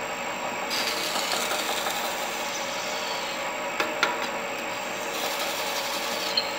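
A wood lathe running while a hand-held twist drill bit bores into the end grain of spinning alder, widening a pilot hole. A steady cutting hiss comes in about a second in and eases off near five seconds, with a couple of sharp clicks around four seconds, over the lathe's steady hum.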